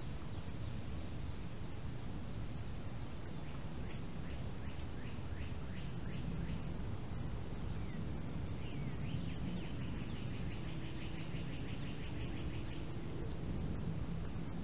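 Night insects calling: a steady high-pitched drone with groups of quick chirps and, about halfway through, a rapid chirping trill lasting several seconds, over a steady low background noise.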